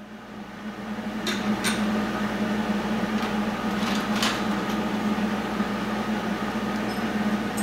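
Steady low hum of a workshop machine that swells in over the first second or two and then holds, with a few light metal clicks as the freshly welded piece is handled.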